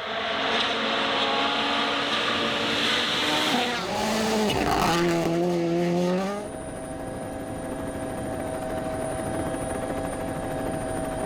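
Rally car engine at full speed over a dense hiss, its pitch stepping and bending as it shifts gear. About two thirds of the way through, the sound changes to a steadier, slightly quieter engine note with a thin high whine.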